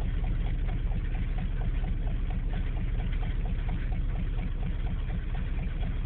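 Chevy 400 V8 of a K10 pickup idling steadily with a light, regular ticking, warming up just after a cold start.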